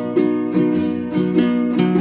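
Background music: a cheerful ukulele tune with a steady strummed rhythm.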